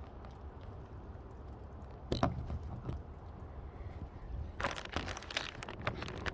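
Rustling and crinkling as material is handled, with a single knock about two seconds in; the rustling turns dense and continuous from about two-thirds of the way through.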